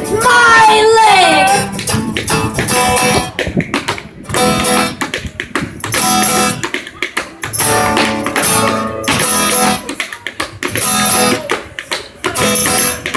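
Acoustic guitar strumming while a dancer tap dances on a wooden board, sharp taps clicking over the guitar. A sung line trails off in the first second or two.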